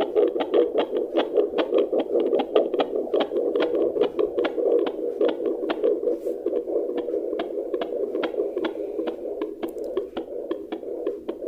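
Fetal heartbeat picked up by a handheld fetal Doppler at about 22 weeks of pregnancy: a fast, even rhythm of whooshing beats over a steady hiss, played through the device's speaker.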